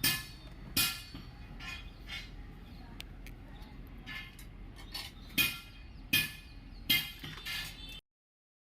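Several sharp clinks and knocks at uneven intervals, some ringing briefly, as hard objects are handled and set down; the sound cuts off abruptly near the end.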